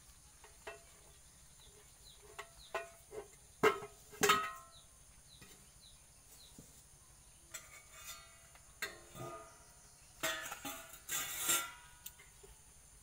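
Metal cooking pots and plates clanking and clattering as they are handled, set down and stacked. A pair of sharp ringing clanks comes about four seconds in, and a run of clattering near the end.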